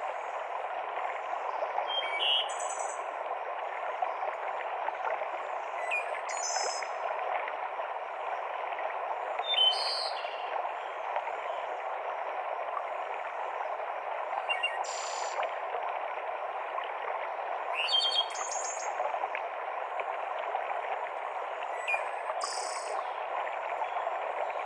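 Mountain stream cascading through a forest, a steady rush of water, with songbirds giving short high calls about six times, every few seconds.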